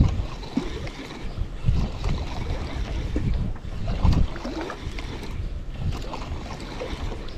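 Wind buffeting the microphone over sea noise on a boat, with irregular low gusts and thumps.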